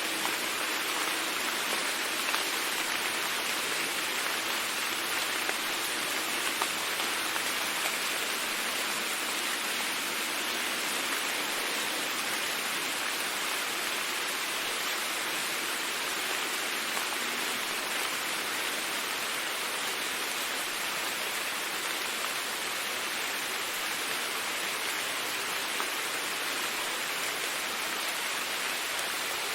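Steady rain falling, an even hiss of many drops with scattered small patters.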